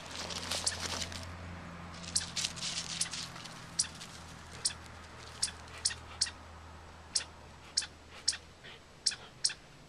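Short dry crunches and clicks in dry leaves and pine needles, packed close together at first, then single sharp clicks about once a second, over a faint low hum.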